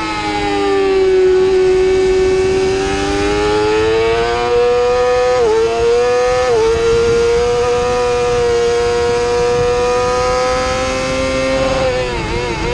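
2017 Yamaha YZF-R6's inline-four engine at high revs under racing load: its pitch climbs out of a corner, dips sharply twice about halfway as it shifts up through the gears, holds high down the straight, then wavers near the end as the rider brakes and starts shifting down.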